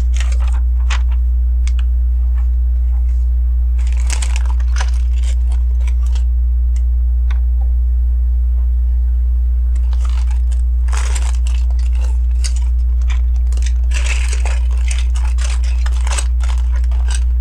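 Small plastic LEGO bricks clicking and rattling as pieces are handled, sorted and pressed together, in several short clusters of clicks. Under them runs a loud steady low electrical hum.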